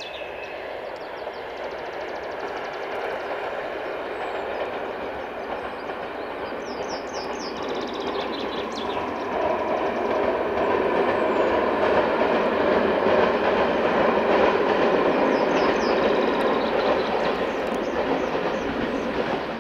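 ČKD class 754 diesel-electric locomotive hauling a short passenger train, heard from a distance: a steady engine drone and wheel rumble with some clickety-clack, growing louder over the first half and then holding steady.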